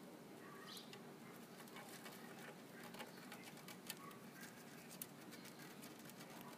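Near silence: faint room hum with scattered soft clicks and taps, the sharpest about four and five seconds in, and a couple of faint chirps.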